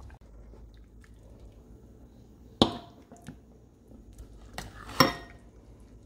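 A metal utensil knocking against a stainless steel cooking pot, twice: about two and a half seconds in and again near five seconds, each knock ringing briefly. A few lighter taps fall between the two knocks.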